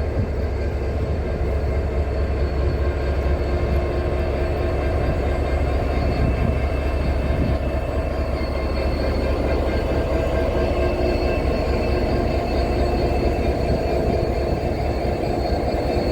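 Class 69 diesel locomotive's EMD 12-710 engine idling at a standstill, a steady deep rumble with a constant hum over it.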